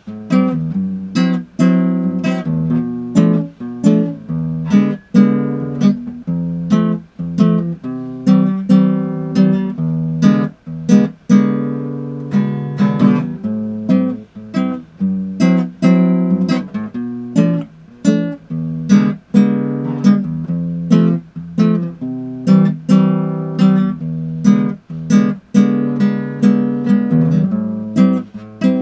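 Acoustic guitar played by hand, its chords strummed in a steady rhythm, each strum ringing on into the next.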